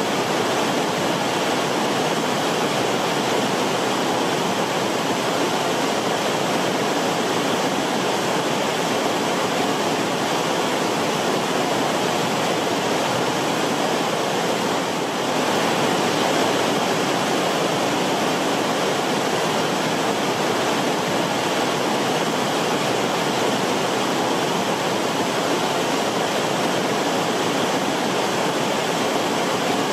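River water rushing steadily: a continuous, even wash of flowing water, with a slight brief dip in level about halfway through.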